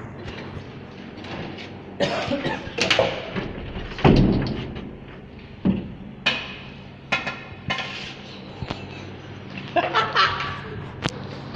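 Scattered knocks and bumps, the loudest about four seconds in, with brief bits of voices over a steady low hum.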